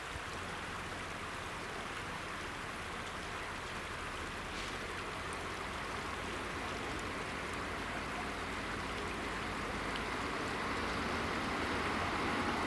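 Steady rushing noise that slowly grows louder as a train approaches the closed level crossing. Near the end a faint whine and a low hum join it.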